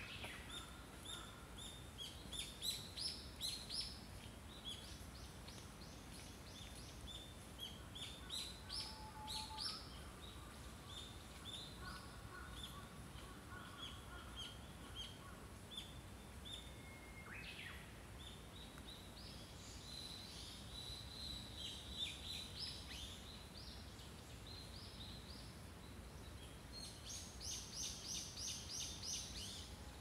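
Small songbirds chirping and singing: many short high chirps scattered throughout, with a quick run of chirps near the end, over a steady faint background noise.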